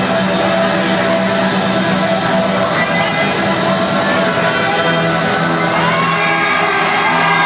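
Live band playing held chords through the hall's sound system, with the crowd shouting and whooping over the music.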